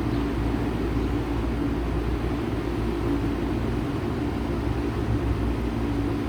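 1995 Bard 3.5-ton wall-hung heat pump running steadily in cooling mode: an even rush of fan air over a low, steady hum.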